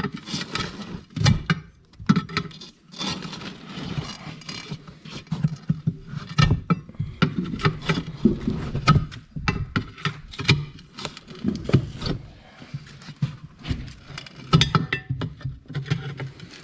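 Tyre levers clinking, knocking and scraping against a tractor wheel rim as the tyre bead is levered onto the rim: many irregular short metal knocks and clicks.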